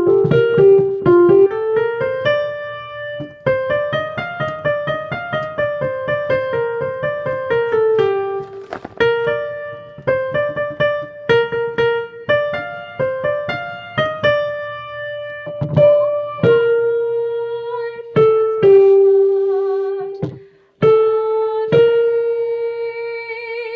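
Piano playing the soprano 1 line of a madrigal from measure 40: a run of quick notes, then a few long held notes over the last several seconds.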